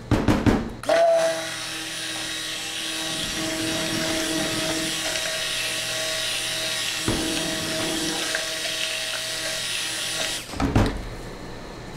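Cuisinart stick blender whirring steadily in a pitcher of soapmaking oils, blending in goat milk. It starts about a second in after a few short knocks, catches briefly about seven seconds in, and stops about ten seconds in.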